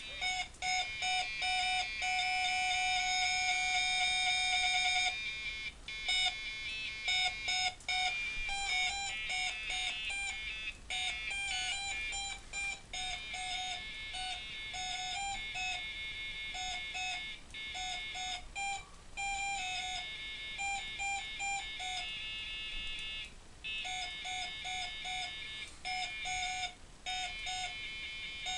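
Electronic beeping tones at a few nearby pitches, played as short notes and bursts with brief pauses, triggered by presses on a homemade wireless button controller. One long held note runs from about two to five seconds in.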